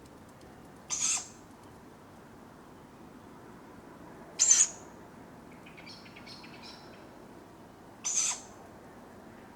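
Tawny owlets giving short, hoarse, hissing begging calls for food, three calls about three and a half seconds apart. Faint chirps of a small bird come between the second and third calls.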